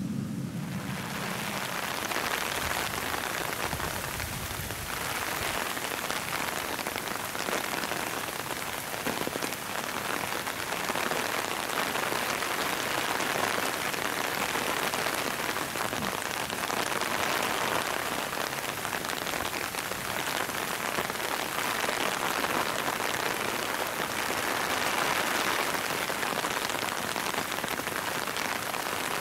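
Steady rain falling on concrete and other hard surfaces, an even hiss with no breaks.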